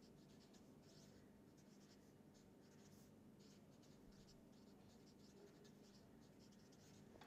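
Faint scratching of a felt-tip marker writing on paper, a quick irregular run of short strokes.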